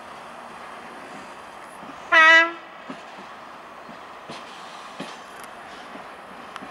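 Tank wagons rolling past with a few faint wheel clicks. About two seconds in comes a short horn blast, one steady pitched tone of about half a second and much louder than the passing wagons.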